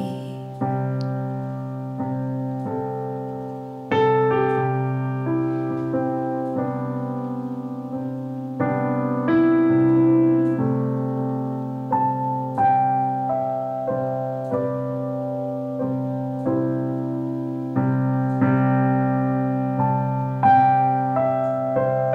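Solo piano playing slow chords with a melody on top, each struck note ringing on and fading before the next.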